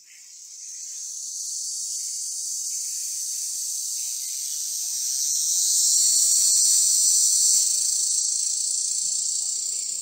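A loud, steady, high-pitched insect buzz with a hissing quality, swelling in over the first second and growing louder around the middle.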